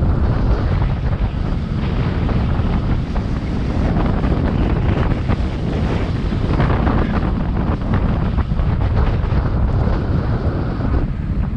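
Gale-force wind of about 30 mph buffeting the microphone in loud, steady wind noise, with ocean surf beneath it.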